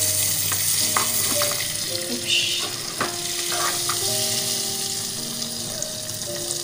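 Margarine sizzling as it melts in a small aluminium saucepan, a steady hiss with a few sharp pops.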